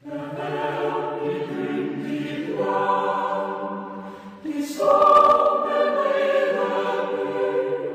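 Choral music: voices holding sustained chords without clear words, the chord changing several times and swelling loudest about five seconds in.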